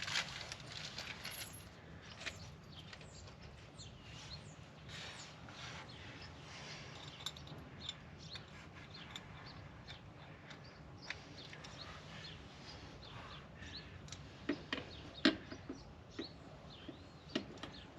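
Birds chirping in the background, with a few sharp clicks and knocks near the end.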